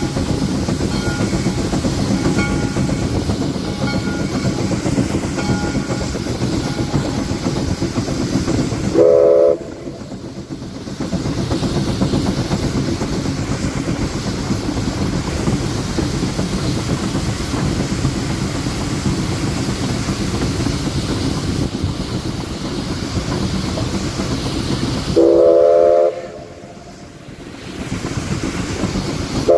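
1947 Baldwin Mikado steam locomotive running with a steady rumble, its steam whistle giving a short blast about nine seconds in, another near the end, and a third just as the stretch closes.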